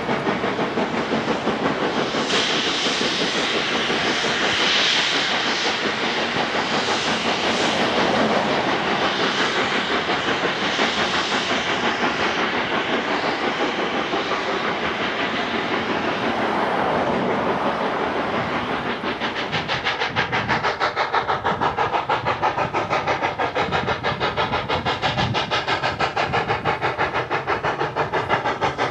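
Narrow-gauge steam locomotive working with its train: loud steam hiss over a steady rhythmic beat. The hiss is strongest in the first half; later the beat stands out more clearly, at a few pulses a second.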